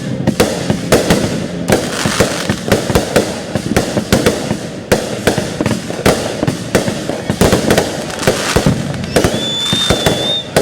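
Fireworks display going off in a rapid barrage: many sharp bangs a second over continuous crackling, with a high whistle lasting about a second near the end.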